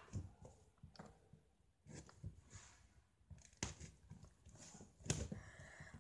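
Fingers picking and scratching at the sealed flap of a Lego Mindstorms EV3 cardboard box, giving a few faint, irregular scrapes and clicks. The seal is proving hard to open.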